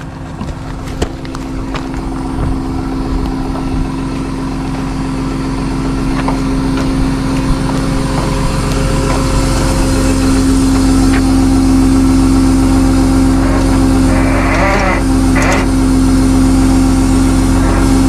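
Tow truck engine running with a steady droning hum that grows gradually louder.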